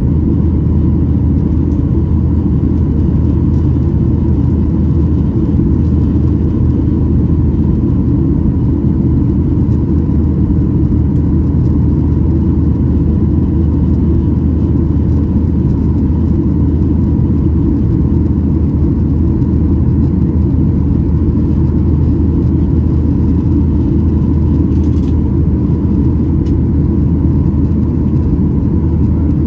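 Cabin noise inside a Boeing 737-800 with CFM56-7B turbofan engines: a steady low rumble of engine and airflow noise with a faint constant hum over it.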